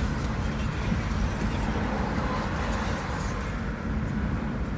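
Steady rumble of a moving car's engine and tyres heard from inside the cabin, with surrounding traffic noise.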